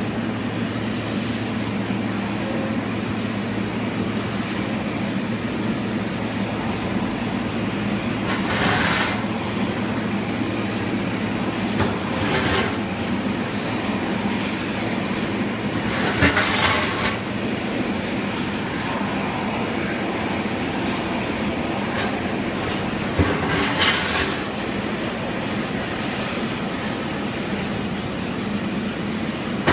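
Steady low mechanical rumble with a hum, broken by four short hissing bursts spread through it.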